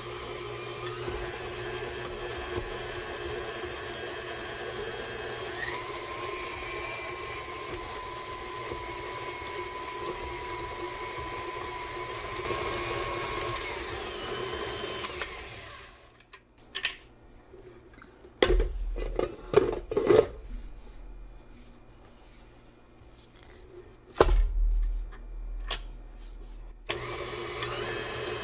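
KitchenAid Classic Plus tilt-head stand mixer running with its flat beater, creaming shortening and sugar; the motor whine steps up in pitch about six seconds in. The motor stops about sixteen seconds in, a few knocks and thumps follow as the steel bowl, which had been moving around, is reseated, and the mixer starts again near the end.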